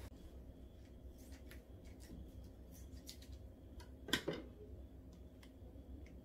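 Faint scattered clicks as a noodle sauce packet is handled and snipped open with scissors, with one sharper knock about four seconds in.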